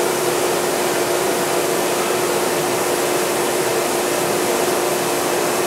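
A machine running steadily: an even rushing hiss with a constant humming tone underneath, unchanging throughout.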